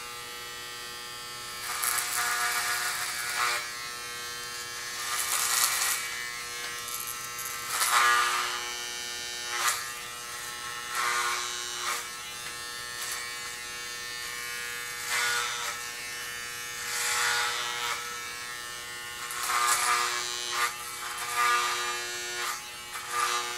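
Corded electric hair clippers fitted with a number 4 guard, buzzing steadily. The sound swells louder and rougher each time the blades pass through the hair to shave the head, several times in a row.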